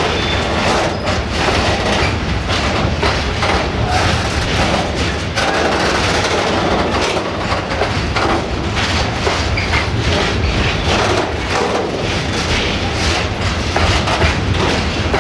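Loaded freight train of high-sided sliding-wall covered wagons rolling past close by: a steady rumble of wheels on rail with frequent clicks and clacks from the wheelsets crossing the track.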